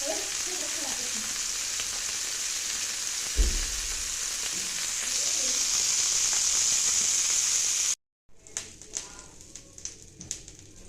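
Food frying in a pan: a steady sizzle that grows louder about halfway through, with one dull thump a few seconds in. The sizzle cuts off abruptly near the end, followed by a few light clicks and taps.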